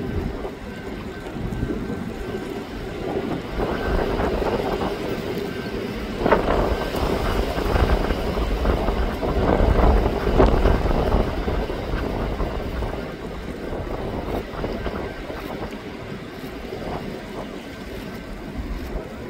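Airbus A380's four Rolls-Royce Trent 900 jet engines on final approach, a jet rumble with a faint steady whine, growing louder about six seconds in and easing off toward the end. Gusty wind buffets the microphone throughout.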